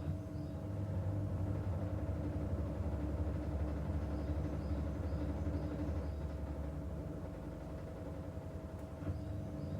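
Washing machine running, a steady motor hum. The low drone swells about half a second in, eases off around seven seconds, and builds again near the end.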